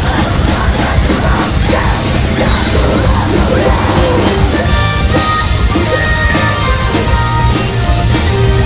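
A live band playing loud heavy rock through the PA, with drums, electric guitar and a female vocalist on a handheld mic. Held melodic notes come in about halfway through.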